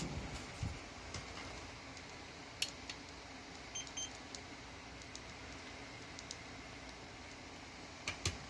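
Hitachi MRO-TS8 steam oven running under test after a control-board repair: a steady fan hum with scattered small clicks, and two short high beeps about four seconds in.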